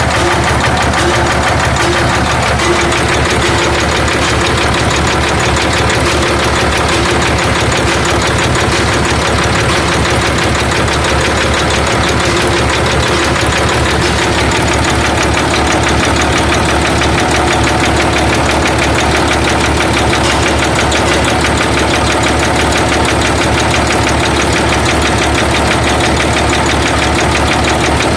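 Freshly overhauled Hino straight-six diesel engine running steadily at a constant speed while driving a generator on a test run.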